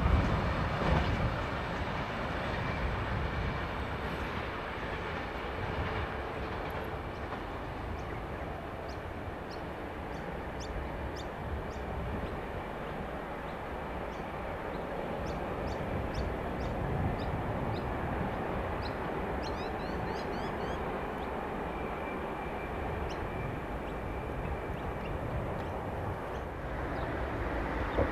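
Tail of a long oil tank-wagon freight train rolling away over the rails, its wheel and track noise loudest at first and easing to a steady distant rumble. Faint short high chirps come through in the middle.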